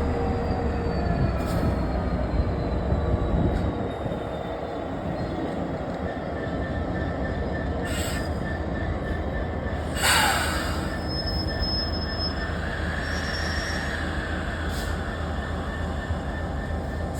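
Freight train of stone wagons rolling slowly, with a diesel locomotive drone that drops away about four seconds in. About ten seconds in a clank comes, followed by high-pitched wheel squeal for a few seconds.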